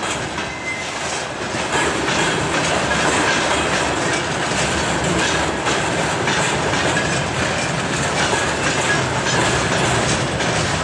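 Tank wagons of a freight train rolling past close by: a steady rumble of steel wheels on rail with a rhythmic clatter over the rail joints, and a faint brief wheel squeal now and then.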